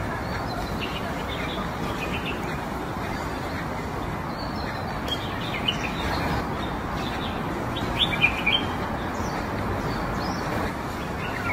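Small birds chirping in short, scattered calls over a steady outdoor background hum, with a cluster of louder chirps about eight seconds in.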